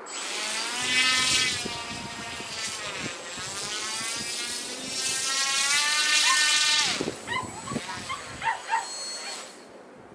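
Small electric motor of a K'nex radio-controlled ski vehicle whining, its pitch rising and falling as it is throttled up and down. It drops away about seven seconds in, and a few short, high yips follow.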